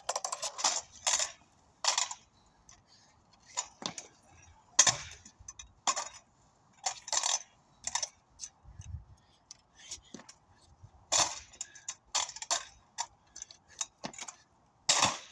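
Stunt scooter clattering on pavement while the rider practises fingerwhips: a string of sharp, irregular clacks as the deck and wheels are flicked around and land on the ground.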